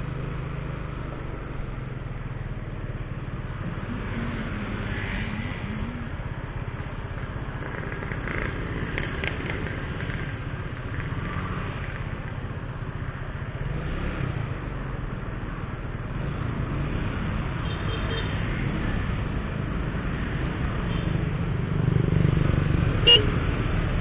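Motorcycle riding through town traffic: a steady low engine and road rumble mixed with wind noise on an action camera's microphone. It swells as the bike speeds up near the end, and there is one short sharp sound just before the end.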